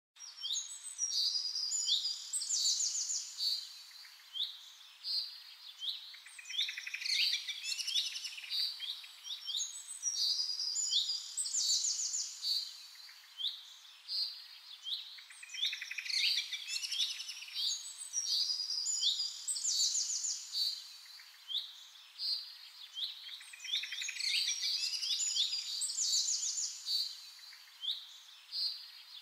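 Several songbirds singing and chirping together, quick trills and high whistled notes overlapping, in a passage that repeats about every eight seconds.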